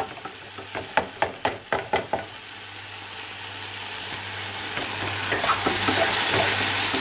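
Cèpes frying with parsley and garlic in a frying pan, stirred with a wooden spoon: the spoon knocks and scrapes against the pan in the first two seconds, then a steady sizzle grows louder toward the end.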